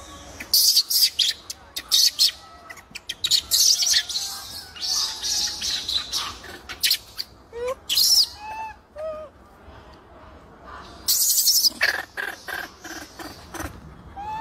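High-pitched animal calls: repeated loud, shrill squeals and chirps in short bursts, with a few short rising-and-falling whistled calls about halfway through and again at the end.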